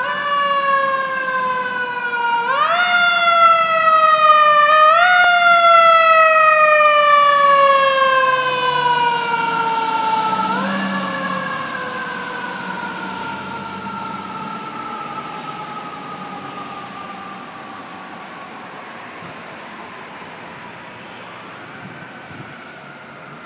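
Fire truck siren wailing as the ladder truck passes and drives away. It is wound up quickly three times, each time gliding slowly down in pitch, and a faint fourth rise comes near the end. The siren is loudest a few seconds in, then fades steadily into the distance.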